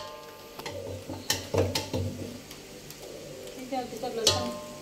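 A metal skimmer spoon stirring chicken in a large aluminium cooking pot: several clinks and scrapes against the pot, the loudest about four seconds in with a short metallic ring, over the sizzle of the chicken frying.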